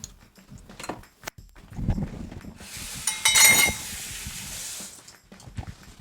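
A few light glass clinks, then the cabbage detox drink is poured into a glass as a hiss lasting about two seconds, loudest about three and a half seconds in.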